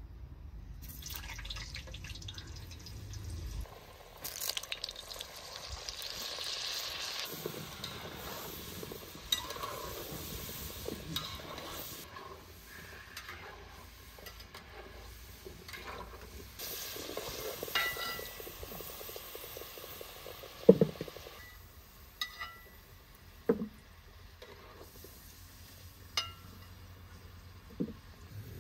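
Food-preparation handling sounds: stirring and utensils working in a pot or dish, with liquid sounds, then several short sharp knocks and clinks in the second half.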